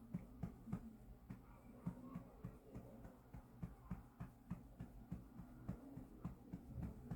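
Soft, regular pats, about three a second, of a hand patting a baby's back to bring up a burp.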